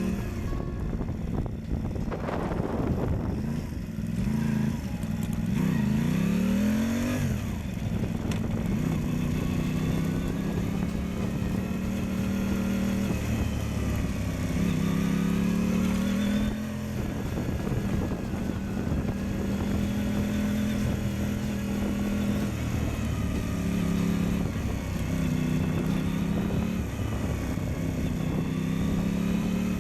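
Moto Guzzi V7's transverse V-twin engine running as the motorcycle is ridden. The revs rise sharply about six seconds in, then drop and pick up again several times.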